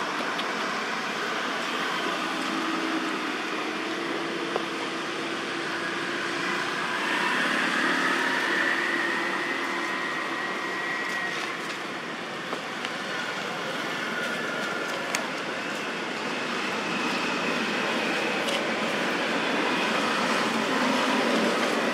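Steady road traffic noise, with motorbike engines passing.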